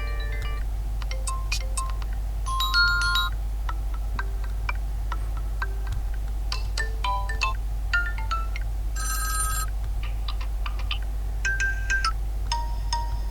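Tecno Spark 10 smartphone ringtone playing: a tune of short, chime-like electronic notes at changing pitches, over a steady low hum.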